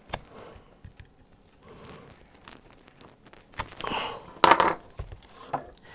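Sticky RV roof-repair tape being cut and peeled off its roll with a utility knife: small clicks and scrapes, then two louder bursts of tearing and crinkling about four seconds in.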